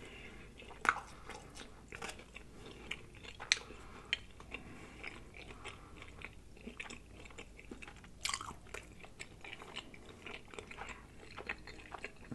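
A person chewing a mouthful of pizza close to the microphone: irregular wet mouth smacks and soft crunches of crust, with a few sharper smacks standing out.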